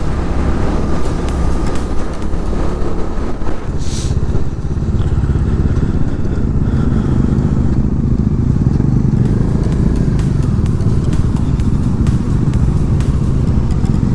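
Bajaj Dominar 400 motorcycle's single-cylinder engine running while riding along, with wind and road noise. The engine note becomes steadier and a little louder about four and a half seconds in, and there is a brief sharp noise just before.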